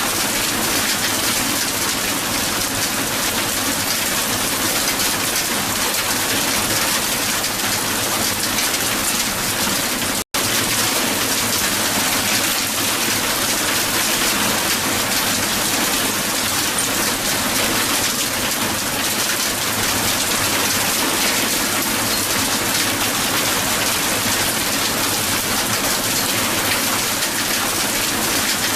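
Hail falling hard onto the ground: a dense, steady clatter of countless small impacts, broken by a split-second dropout about ten seconds in.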